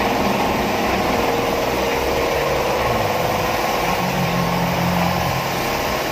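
A motor running steadily with an even, droning hum. A lower tone joins in about four seconds in and fades a second and a half later.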